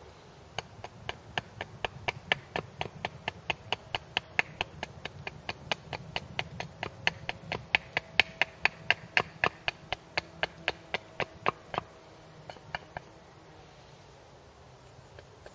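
Hatchet choked up at the head chopping short, quick strokes into the end of a wooden wedge blank standing on a chopping block, tapering it to a point. A steady run of sharp wooden taps, about three or four a second, stops about twelve seconds in, followed by a few last taps.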